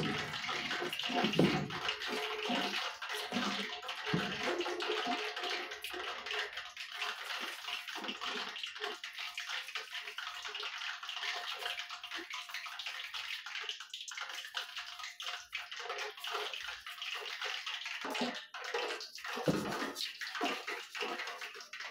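Hot oil sizzling steadily in a pot as balls of puff puff dough fry in it.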